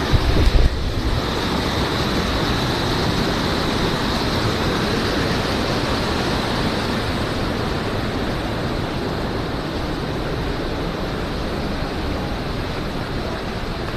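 Waterfall rushing steadily, with a short low buffet of wind on the microphone in the first second.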